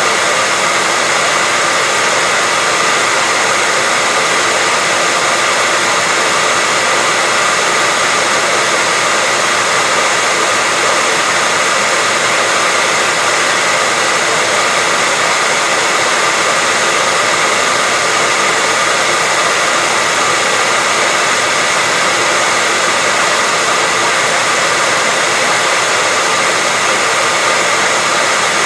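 Hairdryer running steadily: a constant airy rush of fan and airflow noise with a faint steady whine from the motor, unchanging throughout.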